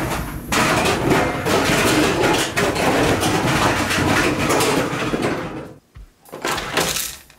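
Hard plastic toy blaster tumbling in a running clothes dryer drum, a dense clatter of knocks and bangs over the drum's rumble. It stops suddenly about six seconds in, followed by a shorter burst of noise near the end.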